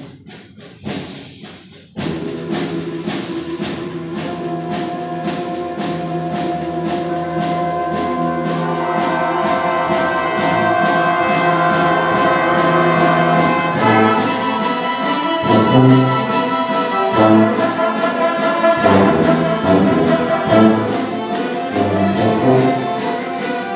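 Youth orchestra of strings, brass and percussion playing. It comes in about two seconds in with long held chords over a steady pulse that grow louder, then breaks into heavy accented beats in the low instruments from about halfway.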